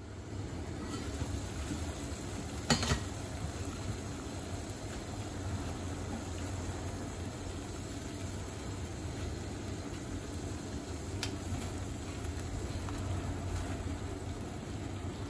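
Pot of water at a rolling boil, a steady bubbling rumble, with one sharp clink about three seconds in and a fainter click later on.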